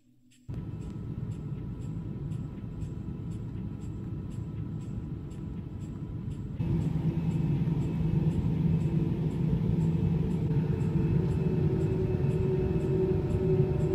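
Steady low mechanical rumble with a steady hum in it. It starts suddenly about half a second in and gets louder about six and a half seconds in. Faint regular high ticks run underneath.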